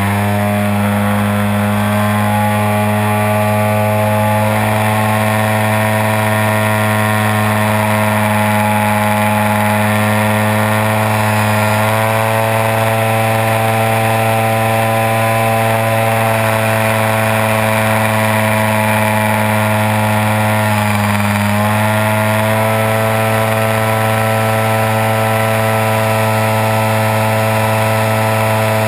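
Engine of a Hanger 9 Extra 330 radio-control aerobatic model plane, heard from a camera mounted on the plane itself, running steadily in flight. Its note wavers slightly and dips briefly about two-thirds of the way through before recovering.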